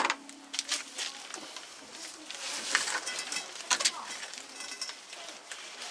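A pigeon cooing nearby, with short clicks and knocks of small metal objects being handled.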